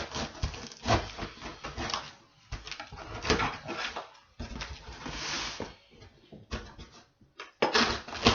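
A cardboard shoebox being opened and handled: irregular rustling, scraping and light knocks in uneven clusters, with a short hissy slide about five seconds in.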